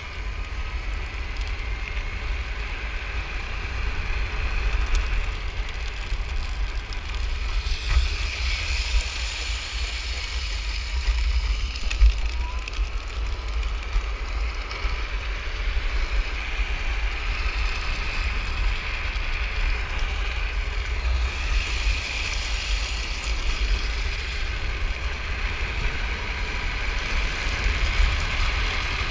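Electric drift trike being ridden on asphalt: a steady crackling rattle of its rear-wheel sleeves rolling on the road, with heavy wind buffeting on the microphone.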